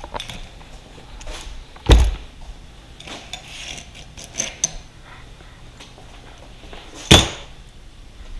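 Hand tools and metal motorcycle parts being handled: two loud knocks, about two seconds in and near the end, with lighter clicks and rattles between.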